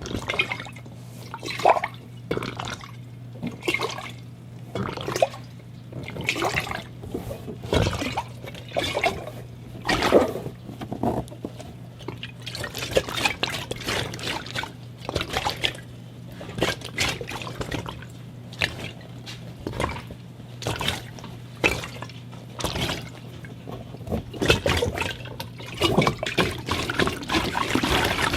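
Rubber glove being rubbed and handled: a dense, irregular run of short squeaks and squelchy, wet-sounding crinkles, with no steady rhythm.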